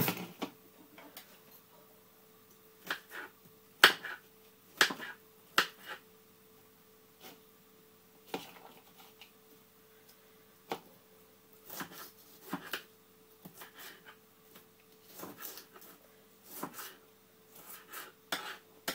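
Kitchen knife knocking on a chopping board while dicing red onion, in scattered, irregular strokes, over a faint steady hum.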